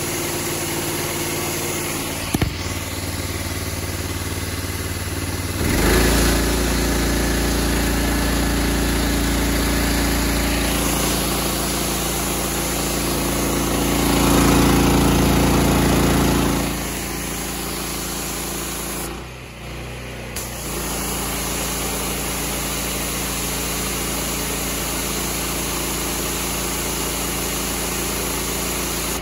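Honda GX390 single-cylinder engine on a direct-drive pressure washer running steadily at half throttle. From about six seconds in it grows louder for roughly ten seconds, then settles back, with a sharp click early on and a brief dip in level a few seconds later.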